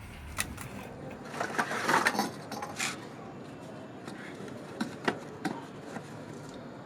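Scattered light knocks and clicks, busiest about two seconds in, then a few single sharp knocks around five seconds in.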